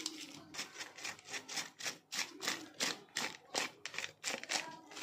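Plastic spice packet rustling in short strokes, about three a second, as it is shaken to sprinkle powdered black salt onto mashed potatoes.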